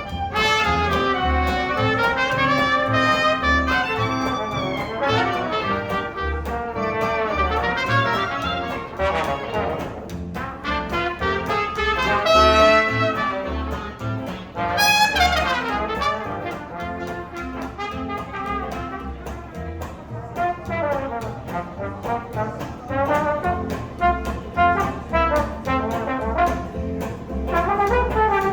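Live jazz band playing, with trumpet and other brass carrying the melody over a steady bass-and-drum beat; a horn line sweeps sharply upward about halfway through.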